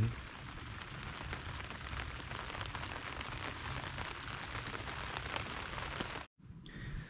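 Rain falling on a tent fly, heard from inside the tent: a steady hiss dotted with many small drop taps, stopping abruptly about six seconds in.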